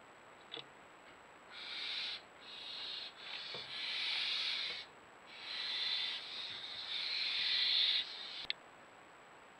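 Barn owl giving a series of harsh hisses, several in close succession and the longest around two seconds, with a short sharp click near the end.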